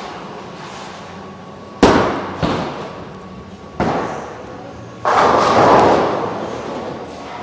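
Bowling alley impacts: a bowling ball thuds onto the lane, with a couple more sharp knocks, then about three seconds later a loud pin crash that rattles and dies away over a second or two.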